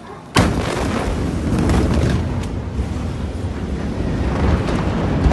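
The shock wave of a massive ammonium-nitrate explosion arrives about a third of a second in as one sudden, very loud blast. A sustained loud rumble follows, with a few sharp cracks scattered through it.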